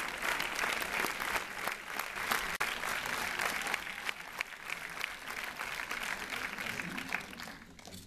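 Cinema audience applauding, the clapping dying away near the end.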